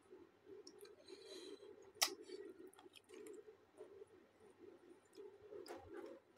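A person chewing a mouthful of roti and curry, with faint wet mouth clicks and smacks. A sharper click about two seconds in is the loudest sound.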